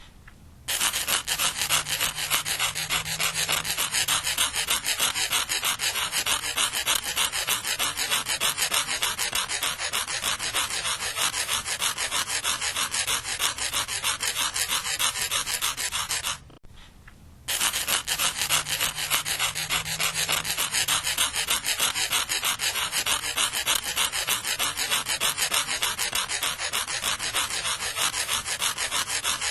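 Sandpaper being scratched in rapid, repeated strokes, a harsh abrasive rasp. It stops for about a second a little past halfway, then starts again.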